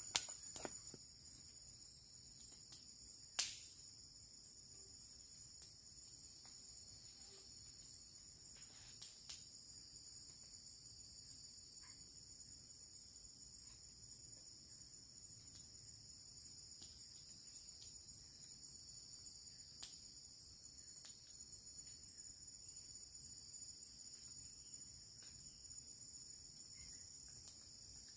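Steady high-pitched chorus of tropical forest insects, with a few sharp clicks, the loudest about three seconds in.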